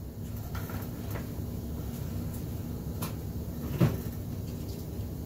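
Faint clicks and one louder knock nearly four seconds in, over a steady low hum: someone rummaging for another card pack.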